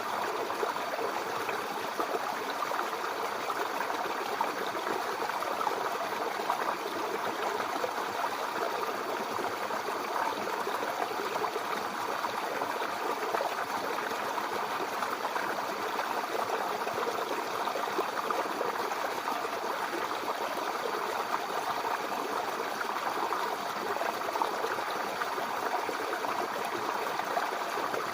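Mountain river flowing over rocks: a steady rushing and splashing of water, even throughout.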